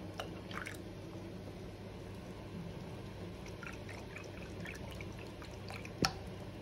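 Milk pouring from a carton into a mug, with a faint steady hum underneath and a sharp knock about six seconds in.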